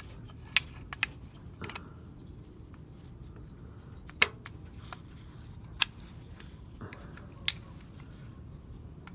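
Small metal and plastic parts of a Mazda RX-7 FD outside door handle clicking and tapping as they are handled and fitted, the latch piece being worked around the handle's tabs. A handful of sharp, irregular clicks, two of them louder, over a faint low hum.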